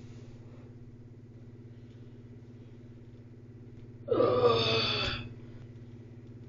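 A steady low hum, with a short voiced sound from a person about four seconds in, lasting about a second.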